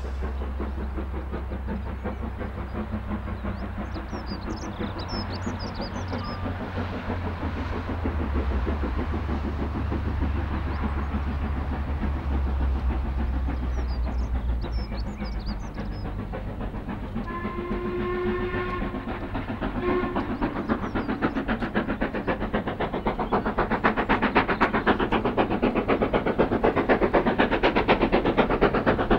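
Steam locomotive approaching under steam: a low rumble at first, then its whistle, one long blast and a short one about two-thirds of the way in, followed by rapid exhaust beats growing louder toward the end. A few bird chirps are heard in the first half.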